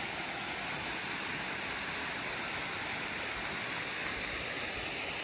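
A steady rush of flowing water.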